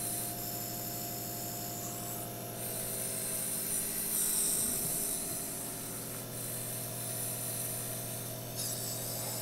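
Jet nebulizer driven by its air compressor, running with a steady electric hum while air and mist hiss through the nebulizer cup; the hiss swells and fades a few times as he breathes the mist in.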